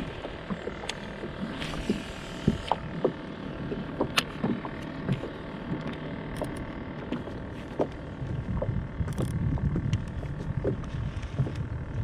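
Water lapping against a small boat's hull, with scattered light clicks and knocks and a faint steady hum underneath.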